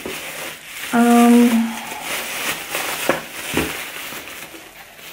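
Rustling and crinkling of cosmetic packaging as products are rummaged out of a parcel, with a few light knocks. About a second in, a woman gives a short held hum, the loudest sound here.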